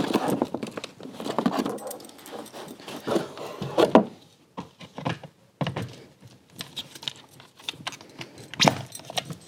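Uppababy Vista stroller's back wheels being handled and unpacked: irregular rustling of packaging with knocks and clicks, and a short lull about halfway through.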